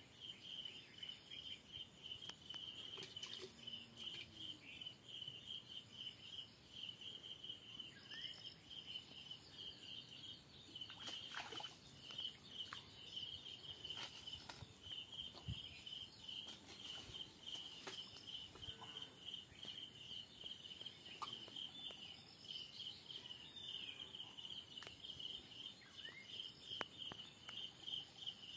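An insect chirping steadily in a fast, even, high-pitched pulse, with a few faint clicks over it.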